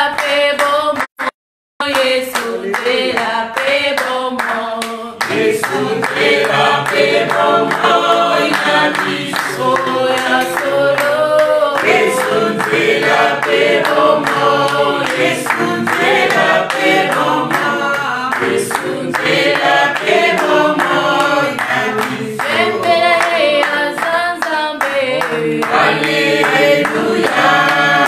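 A small group of voices singing a worship song together, with hands clapping in time. The sound cuts out completely for a moment about a second in.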